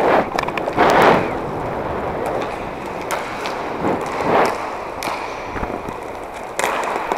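Inline hockey skate wheels rolling steadily over a plastic sport-court floor, with a few louder knocks and scrapes of sticks and skates, the loudest about a second in.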